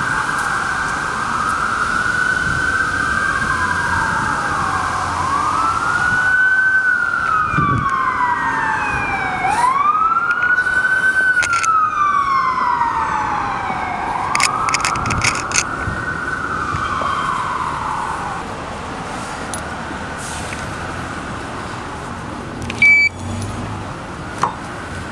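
An emergency vehicle's siren wailing, its pitch rising and falling in slow sweeps about every four to five seconds, then dying away about three-quarters of the way through.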